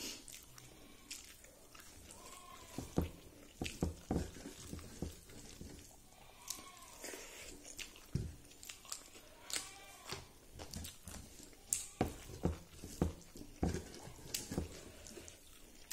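Eating rice by hand from a metal plate: fingers mixing and scraping rice and vegetables on the plate, with chewing and lip smacks in irregular short clicks.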